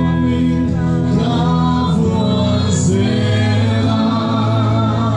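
Live gospel worship music: a band with guitar and a singer on stage, with many voices singing along.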